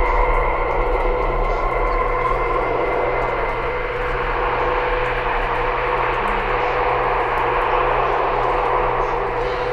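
Steady machine drone and hiss with a constant whine and a low hum running under it, unchanging throughout.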